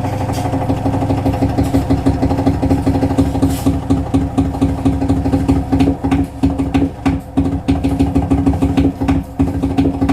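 Siemens iQ700 front-loading washing machine running a spin with a steady hum and a fast rhythmic pulsing that gets rougher about halfway through. This is the drum noise that led to the drum being replaced.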